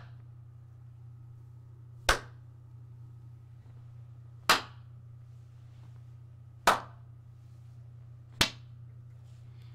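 Four single hand claps, about two seconds apart, made at different spots around a Blue Yeti USB microphone (in front, behind and to each side) to test its pickup pattern, over a low steady hum from the microphone's noise floor.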